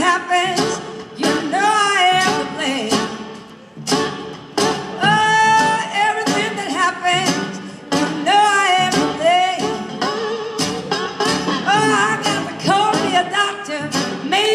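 Live acoustic blues band playing: a woman sings over acoustic guitars, upright bass and snare drum.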